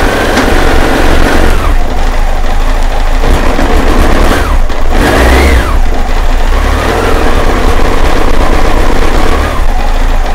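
1998 BMW K1100LT's inline four-cylinder engine running cold. The throttle is blipped about four to five seconds in, and the pitch jumps and falls straight back instead of climbing. It idles but will not rev and sounds awful: an intermittent fault the owner suspects lies in the temperature sensor or its connection.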